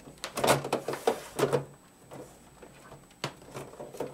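Sheet-metal cover of a desktop computer case being slid and pressed back onto the chassis: several short scraping rubs in the first second and a half, then one sharp click a little after three seconds.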